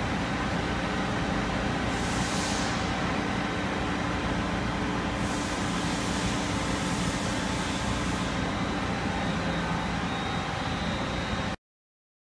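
Steady mechanical hum of a powered-up CNC lathe, with a high hiss twice in the middle. The sound cuts off abruptly near the end.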